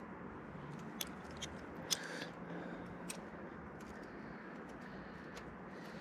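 A few small sharp clicks and taps, the loudest about two seconds in, from handling a dropper post's remote lever and its inner cable and small fitting as they are worked together.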